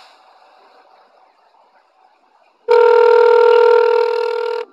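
A single steady electronic beep tone, about two seconds long, starting almost three seconds in and cutting off abruptly; faint room noise before it.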